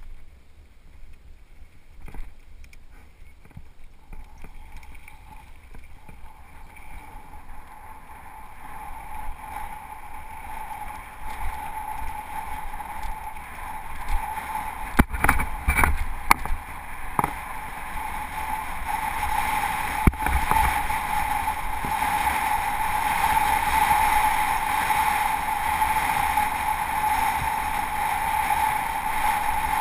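Mountain bike rolling down a dry gravel singletrack: a steady rush of tyre and air noise that grows louder as speed builds. About halfway through comes a cluster of hard knocks and rattles as the bike crosses rocky ground, then a single knock a few seconds later.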